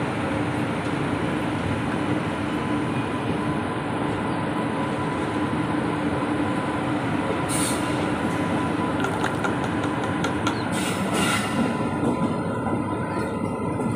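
Passenger train running along the track, heard from on board: a steady rumble of wheels and running gear with a faint whine. About halfway through comes a run of sharp wheel clicks over the track.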